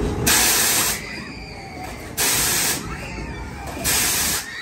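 Frog hopper ride's pneumatic air system hissing in three sharp bursts of released air, each under a second long and spaced about one and a half to two seconds apart, as the ride car is driven up and dropped on its tower.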